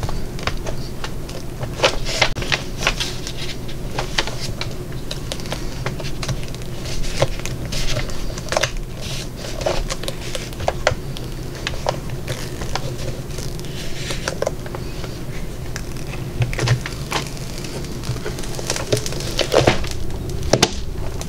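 Silicone mold being flexed and peeled away from a cured resin tray: irregular sticky crackling and clicking as the silicone lets go of the resin edges, over a steady low hum.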